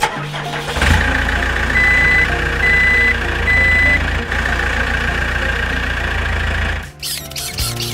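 Heavy vehicle engine running steadily, with three short reversing beeps about two to four seconds in. It starts about a second in and cuts off near the end.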